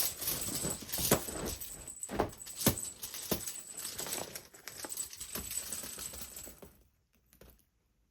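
Cat wand toy being flicked about and batted, a busy run of quick clicks, rattles and jingling that stops about seven seconds in.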